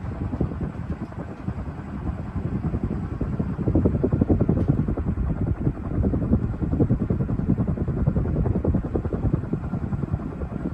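National F-560A1 56-inch industrial ceiling fan running, its moving air making a loud, fluttering low rush that swells a few seconds in and eases a little near the end.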